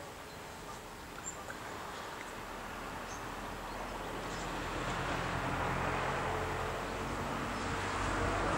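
Outdoor ambience with a low engine hum that grows louder over the seconds, likely a motor vehicle passing nearby, and a few faint bird chirps in the first seconds.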